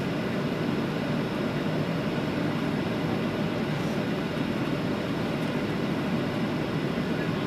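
Steady cabin noise of a Boeing 737 descending on approach, heard from a seat over the wing: an even rush of engine and airflow with no changes.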